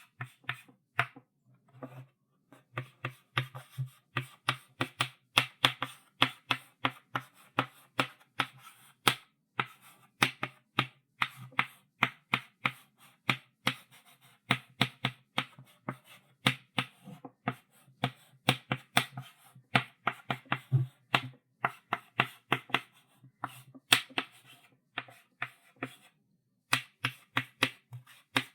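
Chalk writing on a chalkboard: quick, irregular taps and short scratching strokes, several a second, with brief pauses between bursts of writing.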